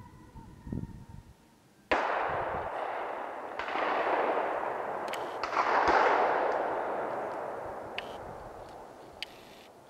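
Three gunshots about two seconds apart, the first about two seconds in, each followed by a long rolling echo that dies away over several seconds.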